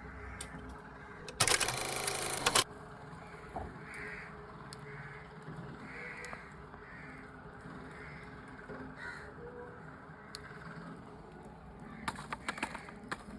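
Birds calling: one loud, harsh call lasting about a second, about a second and a half in, then a string of softer short calls repeated at even spacing. A few sharp clicks come near the end.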